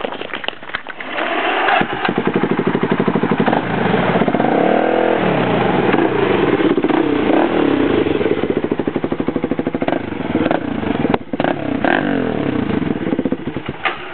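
Polaris Predator 500's single-cylinder four-stroke engine running through its stock exhaust. It comes up in level about a second in and is revved once, rising and falling in pitch, then runs on until it fades near the end.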